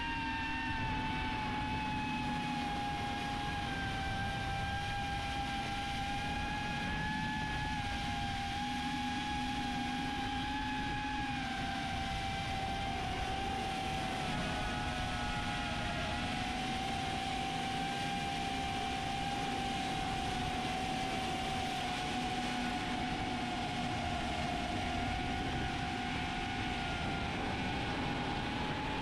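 DarwinFPV CineApe35 cinewhoop's motors and ducted propellers whining in flight, over a steady rush of air. The pitch stays fairly even, drifting slightly up and down with throttle.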